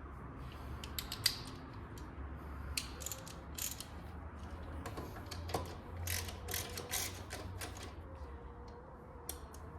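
Hand ratchet clicking in short, irregular runs as a socket turns a suspension bolt.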